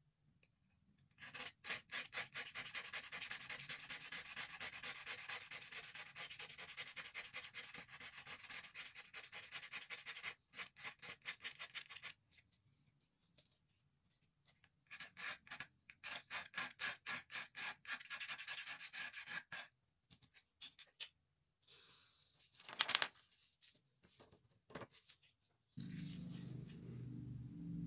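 Rapid scratching strokes on a safety-match box's striker strip, scraping off the red-phosphorus coating. There are two long runs of quick strokes with a pause between them, then a few scattered scratches.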